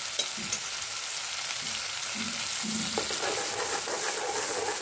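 Butter boiling down into ghee in an aluminium pot, sizzling steadily as its water boils off in a white froth. A metal spoon stirs it, with a single click about three seconds in.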